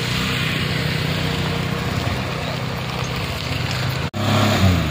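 Engines of heavy machinery and passing vehicles running together as a steady low hum over road noise. A little after four seconds the sound drops out for an instant, and then a nearer engine comes in louder, its pitch falling.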